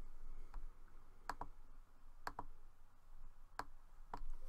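A few faint, sharp clicks about a second apart, four of them clear, from a computer mouse being clicked.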